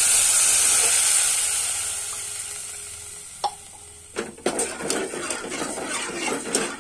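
Water poured into a pot of hot ghee-fried rice hisses and sizzles, loud at first and fading away over about four seconds. From about four seconds in, a skimmer clicks and scrapes against the pot as the rice is stirred.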